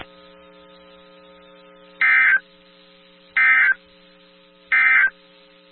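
Emergency Alert System end-of-message data bursts: three short, identical, shrill digital warbles about a second and a half apart, marking the end of the alert. Underneath, a steady low electrical hum.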